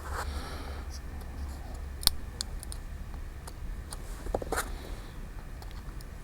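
Small, scattered clicks and scrapes of a pry tool working at an iPhone 5 battery held in by strong adhesive, with a sharper click about two seconds in and a short cluster of clicks a little past the middle, over a low steady hum.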